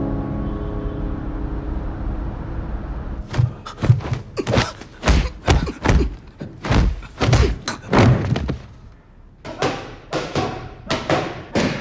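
Soft background music fading out, then boxing gloves landing punches in quick, irregular runs, each hit a dull thump, with a short pause about nine seconds in.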